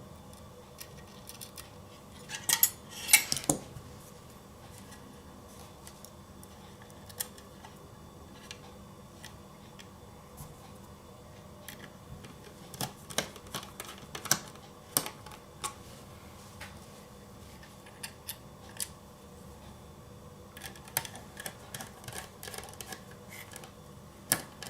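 Scattered sharp clicks and light metallic clinks of small laptop drive parts and screws being handled and fitted, loudest in a quick cluster about three seconds in. A faint steady hum runs underneath.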